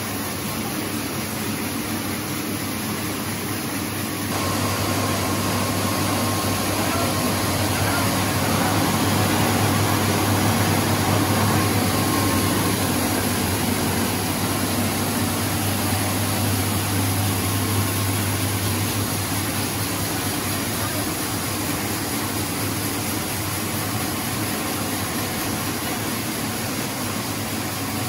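Rice-hulling line running: a Neo Rice Master rice husker with its grain elevators and bag-filling stand, making a steady mechanical noise with a low hum. The hum grows stronger about four seconds in.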